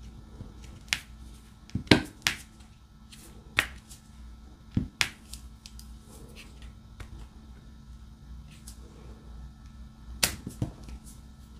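Irregular sharp clicks and taps of diamond-painting work: a drill pen picking up resin drills and pressing them onto the sticky canvas. The clicks come thick in the first few seconds, thin out in the middle and pick up again near the end, over a steady low hum.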